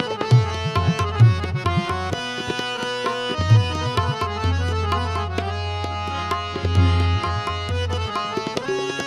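Background instrumental music: a melody over a low held bass note that breaks off and returns, with drum strokes.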